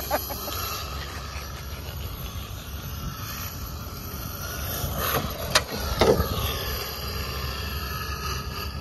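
Small electric RC truck driving over grass and pavers: its motor whines and changes pitch with the throttle, with tyre and chassis noise and a couple of sharp knocks about five and a half and six seconds in.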